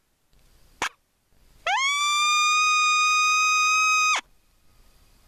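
A Reese Outdoors RO-H howler call blown as one long coyote howl. It rises quickly in pitch, holds a steady note for about two and a half seconds, then cuts off sharply. A short click comes about a second in.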